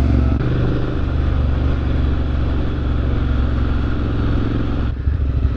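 Triumph Street Scrambler parallel-twin engine running at steady riding speed on a gravel road, with tyre and wind noise over it. About five seconds in, the level drops and turns uneven.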